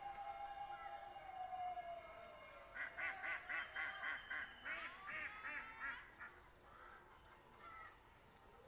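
Ducks quacking: a rapid run of quacks about three seconds in, then a few more calls, fading by about six seconds. Before them a steady tone slowly falls and fades out about two seconds in.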